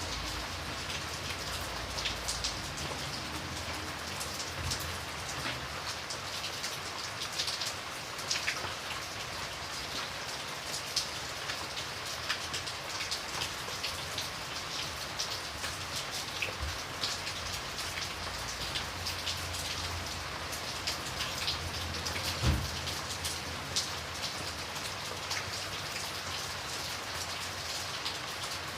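Steady rain falling on a surface, a continuous hiss scattered with individual drop ticks. A single low thump comes about 22 seconds in.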